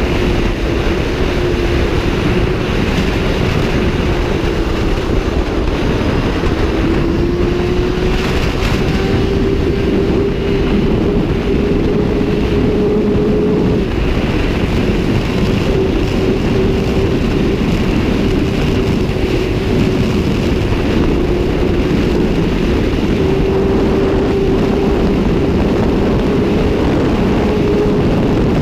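Sport motorcycle riding at speed, its engine holding steady high revs with the pitch drifting slightly up and down, under heavy wind rush on the microphone.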